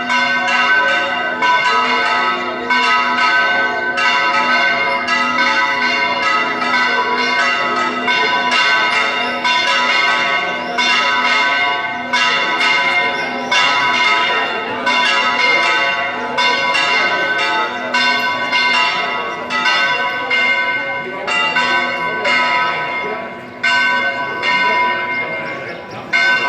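Several church bells pealing continuously, struck in quick succession at about two or three strikes a second, their tones overlapping and ringing on into one another.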